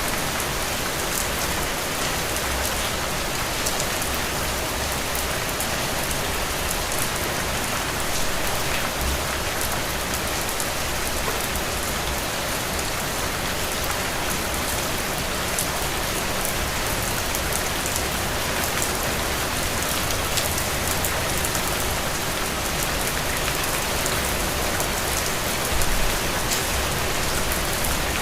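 Heavy rain falling steadily, a dense even hiss with fine drop ticks, with a short low swell near the end.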